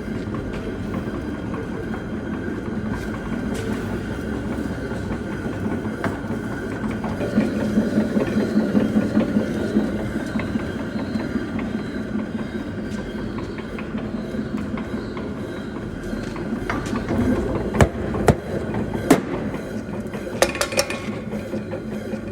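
Stone grinding mill (chakki) running at low speed, grinding whole spices: a steady rumbling grind with a low hum. A few sharp knocks come about three quarters of the way through.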